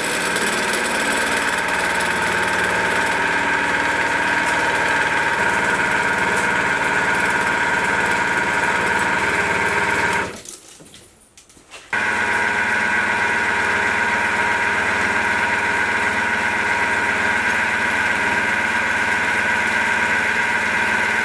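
A small milling machine driving a homemade carbide-insert face mill through a 1 mm deep cut in cold rolled steel plate: a steady cutting noise with a high whine. It briefly drops out for about a second and a half just past the middle. The mill is working near its limit at this depth.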